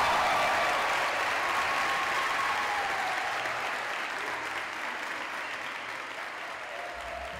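Theatre audience applauding, with a few high shouts of cheering near the start, the clapping slowly dying away.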